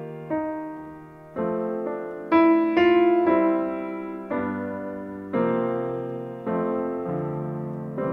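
Piano playing a slow hymn introduction: chords struck about once a second, each left to ring and fade.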